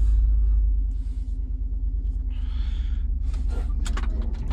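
Dodge Durango 5.9L V8 with Hooker headers and Aero Chamber exhaust running at low revs with a steady deep rumble as the SUV pulls away, heard from inside the cabin. A few light clicks come near the end.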